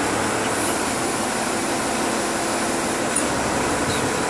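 Engine of the heavy machinery moving the boat, running steadily under a continuous noisy hiss.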